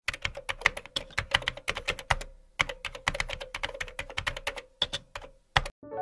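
Keyboard typing sound effect: a fast run of keystroke clicks with a short pause about two seconds in, stopping just before the end.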